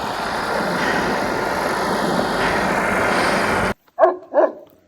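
A steady rushing noise, then after an abrupt cut two short dog barks in quick succession near the end.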